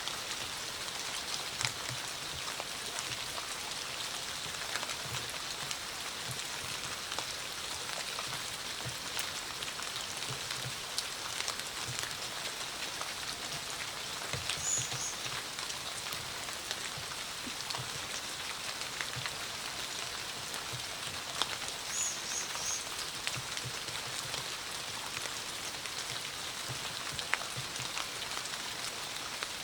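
Steady rain falling, an even patter of drops with scattered sharper drip ticks. Twice, about halfway through and again later, comes a short run of faint high chirps.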